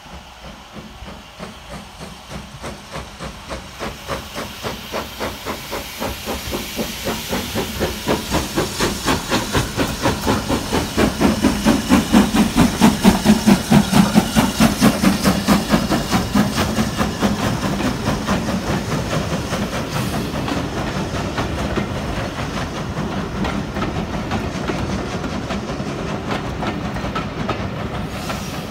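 Steam locomotive working a train, its exhaust beats coming quicker as it gets away, with steam hiss. The chuffs grow louder to a peak about halfway through, then fall back to a steadier, denser sound.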